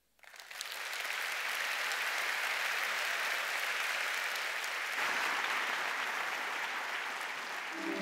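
Audience applauding, swelling up within the first second and then holding steady.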